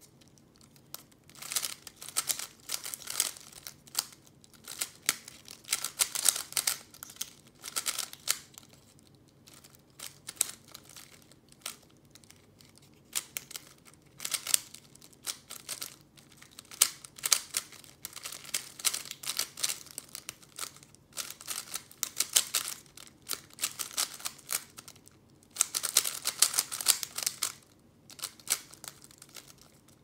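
Plastic 3x3 speed cube being turned fast by hand: rapid bursts of clicking layer turns, broken by short pauses between the bursts.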